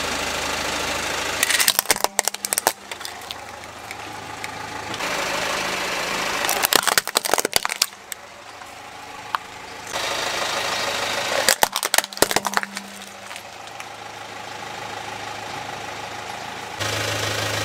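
A car tyre rolling over plastic toy trucks and crushing them, three times: each time a quick cluster of sharp plastic cracks and snaps. Between the crushes the car's engine idles with a low steady hum.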